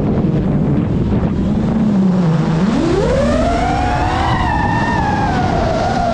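GEPRC Mark 5 FPV quadcopter's motors whining. The pitch stays low with the throttle backed off, then climbs steeply about two and a half seconds in and holds high as the throttle is pushed back up.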